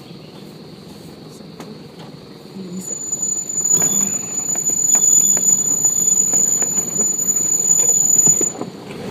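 A four-wheel drive pushing through a deep river crossing: engine and water noise swell about two and a half seconds in, with scattered knocks. Over most of it runs a steady high-pitched squeal that cuts off abruptly near the end.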